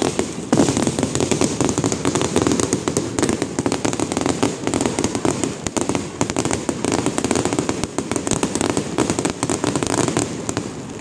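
Fireworks display: dense, rapid crackling and popping from aerial shells, with a louder bang about half a second in.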